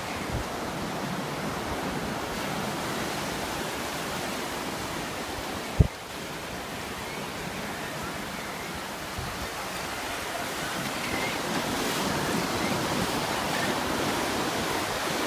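Ocean surf breaking and washing up the beach in a steady hiss, with one sharp knock a little under six seconds in.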